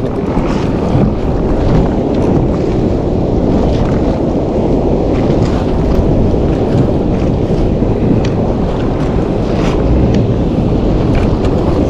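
Steady wind buffeting the microphone, with choppy sea water splashing against a fishing kayak's hull.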